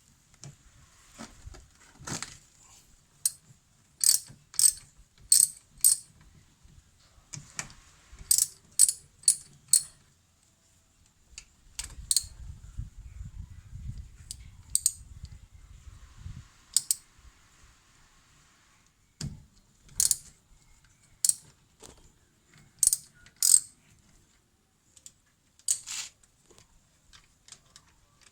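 Sharp metallic clicks and clinks of hand tools working the bolts on a car's brake caliper, often in quick runs of three or four. A low rumble runs for a few seconds midway.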